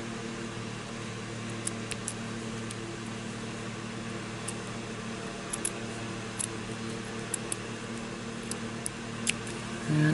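Small detail scissors snipping black felt along a cardboard edge: scattered faint clicks of the blades, about a dozen at uneven intervals, over a steady low hum.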